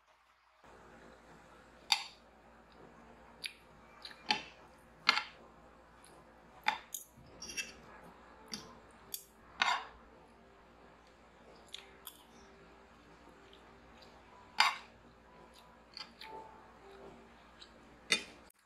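Metal spoon and fork clinking and scraping against a ceramic plate while eating: about a dozen sharp, irregular clinks with a short ring, over a faint steady room hum.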